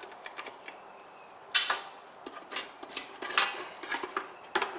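Metal clatter from handling a static phase converter's sheet-metal box on a steel welding table: a few light clicks, a sharp clank about a second and a half in, then scattered clinks and scrapes.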